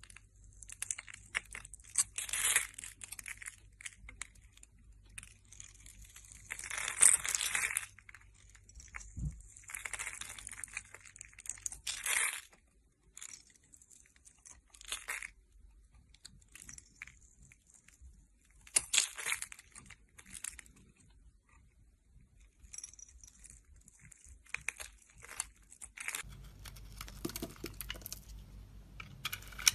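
A blade cutting through a bar of soap: crisp, crunchy scraping strokes, each about a second long, coming irregularly with short pauses between them.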